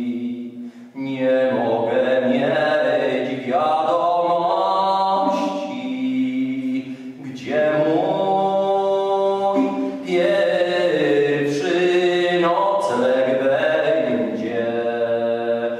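Unaccompanied voices singing a slow chant, holding long notes that move in pitch, with short breaks about a second in and near the middle.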